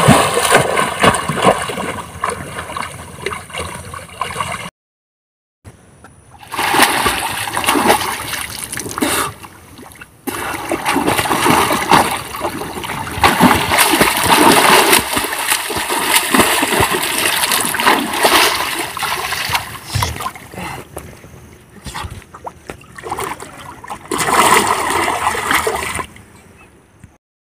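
A person swimming in a pond, arm strokes splashing and churning the water, with waves sloshing. The sound cuts out to silence twice, briefly about five seconds in and again near the end.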